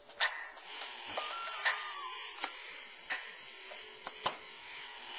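i-Dog robotic toy dogs making electronic sounds: a short stepped electronic tone and a run of sharp clicks over a steady whirring hiss.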